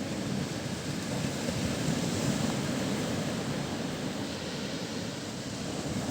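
Sea surf: waves breaking and washing onto the shore in a steady rush that swells a little about two seconds in.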